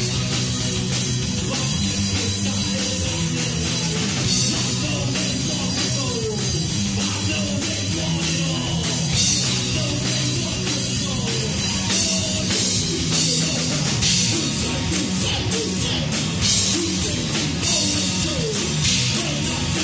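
Live rock trio playing: electric guitar, bass guitar and drum kit, with cymbals ringing over steady bass notes and guitar notes sliding in pitch.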